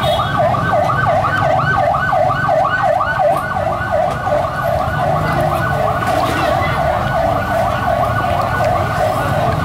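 A loud, fast warbling wail, like a yelp siren, sweeping up and down about four or five times a second without a break, over a low background rumble.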